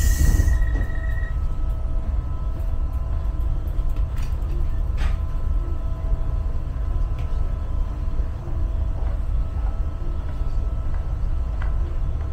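Electric multiple unit train standing at a platform, heard from on board: a steady low rumble and hum from its onboard equipment, with a few thin steady whines and occasional faint clicks. A hiss cuts off in the first half second.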